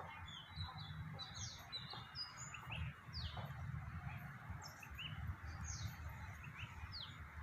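Small birds chirping: many short, quickly falling chirps, repeated irregularly and overlapping, over a steady background hiss and low rumble.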